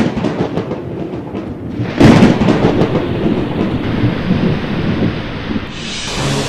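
Thunder with rain: a clap right at the start and a louder crack about two seconds in, each followed by low rolling rumble over a steady rain hiss.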